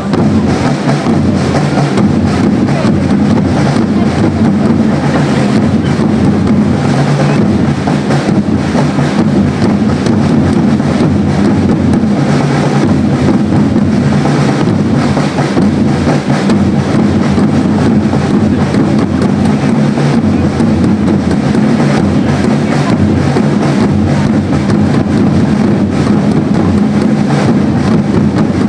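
Drums beating continuously in a dense, steady rhythm, as with a drum corps accompanying a flag-throwing display.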